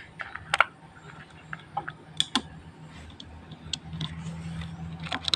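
Scattered sharp clicks and light metallic knocks from battery cables and their ring terminals being handled at the battery terminals. A low steady hum comes in about four seconds in.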